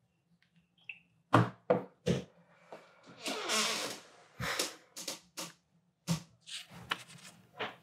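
A smartphone and pen handled on a wooden table: three sharp knocks a little over a second in, a brief rustle of paper, then a run of lighter taps and clicks.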